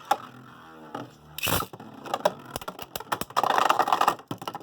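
Beyblade spinning tops battling in a plastic stadium: a falling whir, then rapid clicks and knocks as they clash, with a dense scraping rattle about three seconds in.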